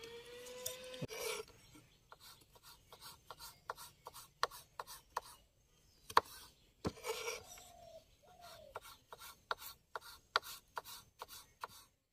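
Kitchen knife chopping small pieces on a wooden cutting board: irregular sharp taps of the blade striking the board, a few a second.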